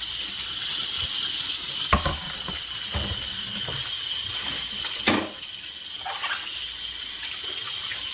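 Water running from a tap into a sink, with a sharp knock about two seconds in and a louder one about five seconds in.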